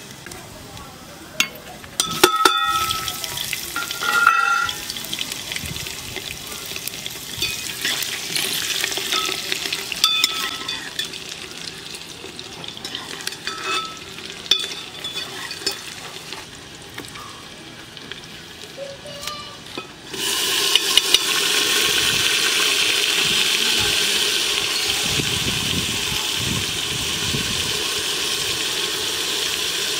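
Hot oil with bay leaves and cumin seeds sizzling in an aluminium pot, with a few ringing clinks of a metal ladle against the pot. About two-thirds of the way through, chopped onions go into the oil and a loud, steady sizzle takes over as they are stirred.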